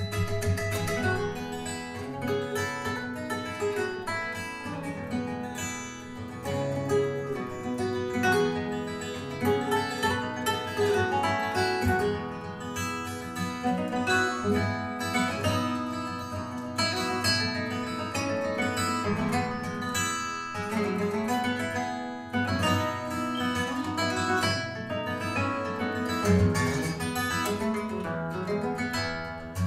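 Instrumental music led by plucked guitar, played back through Definitive Technology BP10 speakers.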